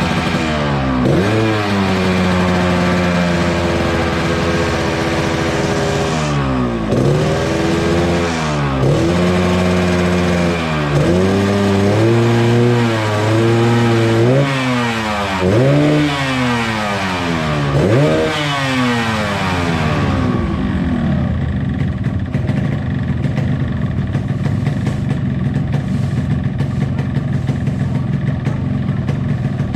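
Yamaha RX-King's two-stroke single-cylinder engine being blipped on the throttle while it is tuned: about nine quick revs, each rising and falling back. About twenty seconds in it settles to a steady idle.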